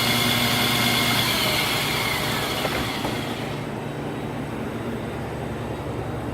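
Buehler Duomet II wet belt sander running with water flowing, then winding down. Its whine falls in pitch about two seconds in, and the hiss dies away about three seconds in, leaving a low steady hum.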